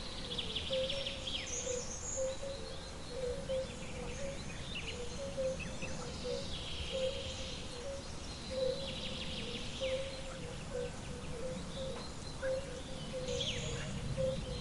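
Wild birds chirping and trilling over a steady background hiss, with a short low note repeated a few times a second throughout.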